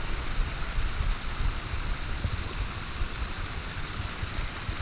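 Steady rushing of water from a small creek waterfall.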